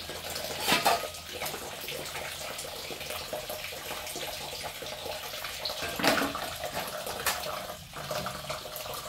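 Water running steadily from a kitchen tap into a sink while dishes are rinsed under it, with a few brief knocks of plates and a plastic basket being handled, about a second in and again near six seconds.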